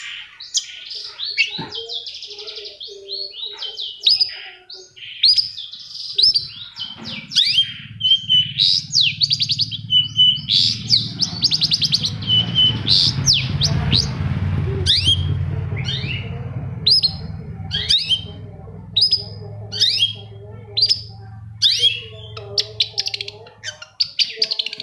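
Long-tailed shrike (cendet) singing: a rapid, unbroken string of sharp, high call notes, quick sweeping notes and fast rattling trills. A low steady hum lies underneath through the middle.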